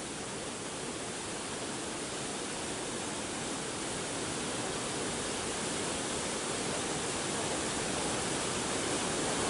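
A steady, even rushing noise with no distinct events, slowly growing louder.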